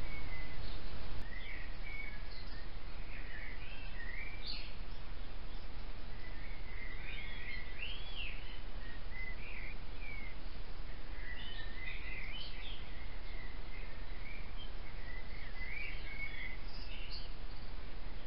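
A songbird singing short, varied phrases of chirps and rising and falling notes, one after another, over a steady low hiss. A louder rush of noise fills the first second.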